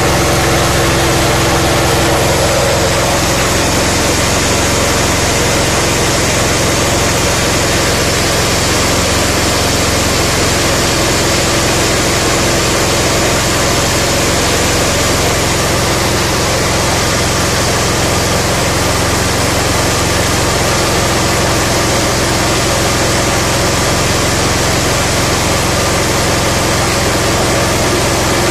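Small gasoline–LPG combo engine running steadily, driving a mini paddy (rice) huller, with the continuous hiss and rattle of grain passing through the huller.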